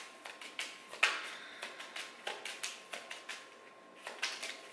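A deck of reading cards being shuffled by hand to draw another card: a quick, irregular run of light card-edge clicks and flicks, with a louder snap about a second in.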